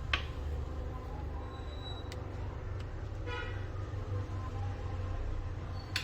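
A brief pitched toot about three seconds in over a steady low hum, with sharp clicks near the start and near the end.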